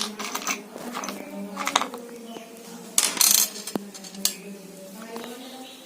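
Screws and a screwdriver clinking and rattling as they are handled while a washing machine's back cover is screwed on, with several sharp clicks and short scraping rustles.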